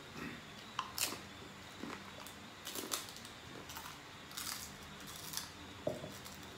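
Scattered short crunches, clicks and rustles of people eating, about eight of them at irregular intervals.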